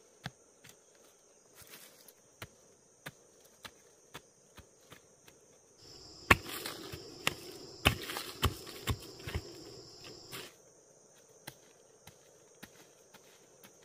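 Steady high-pitched insect chorus, with light knocks about every half second. About six seconds in comes a louder stretch of rustling and several sharp knocks, the first the loudest, which breaks off abruptly about four seconds later.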